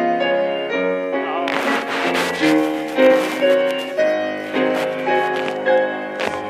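Grand piano playing, with notes and chords held and changing about every half second.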